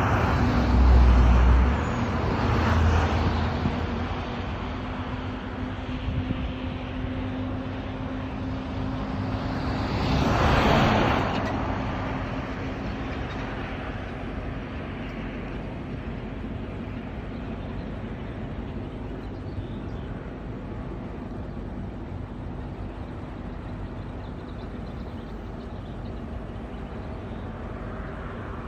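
Steady outdoor background hum of distant motor traffic, with one louder vehicle passing by, swelling and fading about ten seconds in.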